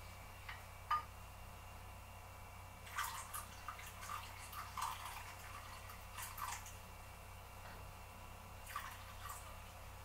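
Coffee poured from a glass server into a pot on the stove, splashing and dripping in a run of small liquid sounds for a few seconds, with a few last drips near the end. A single sharp tap about a second in, as of a wooden spoon against the pot.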